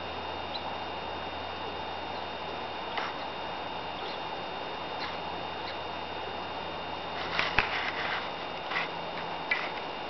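Steady low hum and hiss, with a few short clicks and taps, most of them in a cluster in the last three seconds.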